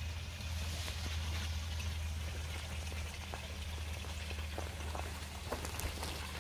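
Water splashing steadily as it spills from a raised basin into a small pond, over a low steady hum.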